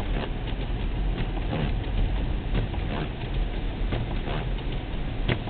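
Car driving on a highway in a snowstorm: a steady low road rumble, with irregular clicks and patter of snow and slush striking the car, several times a second.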